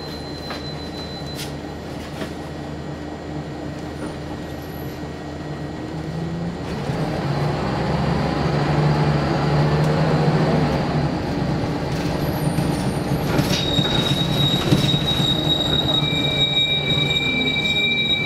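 Scania L94UB single-deck bus's diesel engine heard from inside the saloon, running steadily at first. About six seconds in it pulls away hard, growing louder with its pitch climbing and shifting through the gears. Near the end a thin, high-pitched steady whine joins in over the engine.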